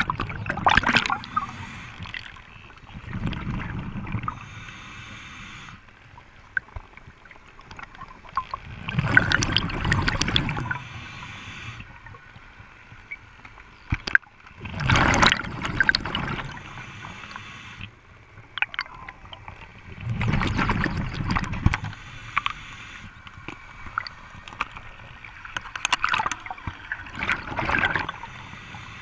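Scuba diver breathing through a regulator underwater: a burst of bubbling exhaled air rises past the camera about every five to six seconds, with a short thin hiss of inhalation through the regulator in between.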